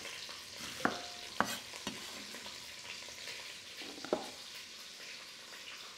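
Skin-on chicken thigh and leg pieces searing in oil in a pan, a steady sizzle. A few sharp knocks of a cleaver on a wooden chopping board and bowl cut through it.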